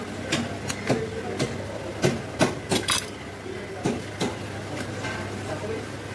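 A run of irregular sharp knocks and clatters of hard objects striking, stopping about four seconds in, over a steady low hum.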